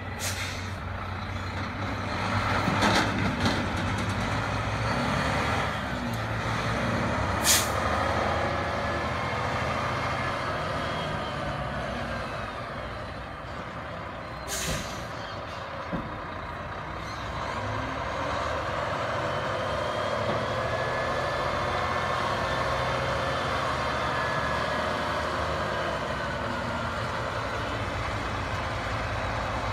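Semi-truck's diesel engine running at low speed as the tractor-trailer maneuvers, with several short, sharp hisses of air from its air brakes in the first half.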